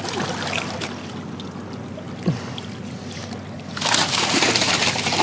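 Water splashing as a hooked zander thrashes at the surface next to the bank, with light lapping and a few small knocks at first, then a much louder spell of splashing from about four seconds in.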